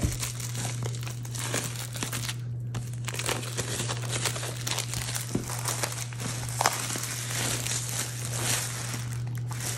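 Plastic shrink wrap being peeled off a MacBook Pro box and crumpled in the hands: continuous crinkling and rustling with small crackles, with a brief lull about two and a half seconds in. A low steady hum runs underneath.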